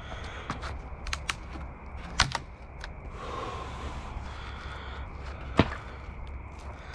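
Scattered sharp knocks from porch demolition work, as boards and debris are pried at and handled: a few in the first two seconds and a loud single knock near the end, with a short stretch of rustling in the middle.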